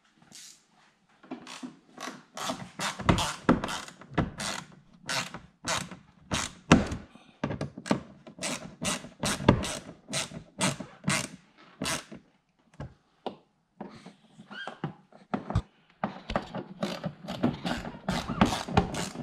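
A screwdriver tightening small screws through a plastic winglet into the car's front fascia: a long run of quick, irregular clicks and knocks, two or three a second, with brief pauses past the middle.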